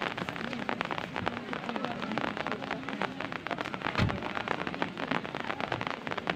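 Rain pattering hard, a dense spatter of close drops ticking throughout, with a single low thump about four seconds in.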